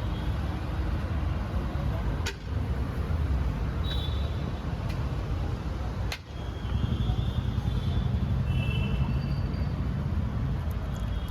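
Steady low rumble of road traffic, with brief dips in level twice and faint short higher-pitched tones over it.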